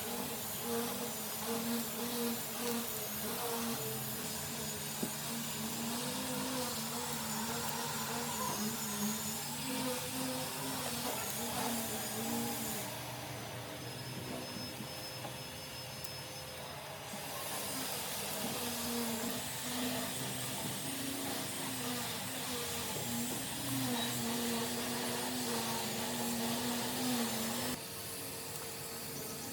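A small electric power tool's motor running with a hiss, its pitch wavering as the load changes. It eases off for a few seconds around the middle and again near the end.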